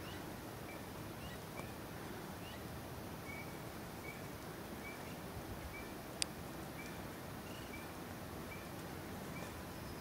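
Steady outdoor background hiss with short, high chirps repeating about every half second, some of them rising in pitch. A single sharp click about six seconds in.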